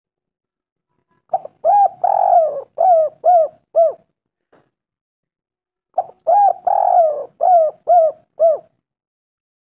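Spotted dove (tekukur) cooing: two phrases about four seconds apart, each a couple of short notes, then a longer rolling coo, then three quick short coos.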